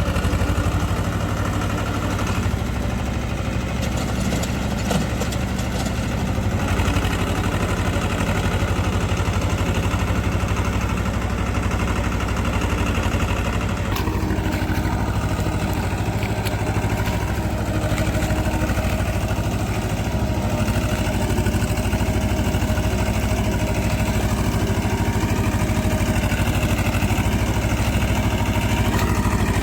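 Swaraj diesel tractor engine running steadily, as when pulling a cultivator through a muddy field, with a change in the engine note about halfway through.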